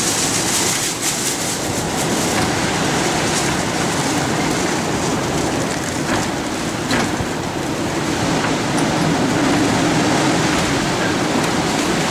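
Storm wind blowing hard outdoors, a loud steady rushing noise that swells slightly near the end.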